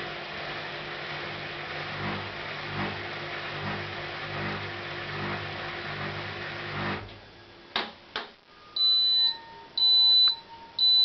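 Hotpoint inverter-motor washing machine turning its drum with a steady hum and a soft pulse a little more than once a second. The hum stops abruptly, two clicks follow, then the machine sounds three high beeps on one pitch, the last starting near the end: the end-of-programme signal.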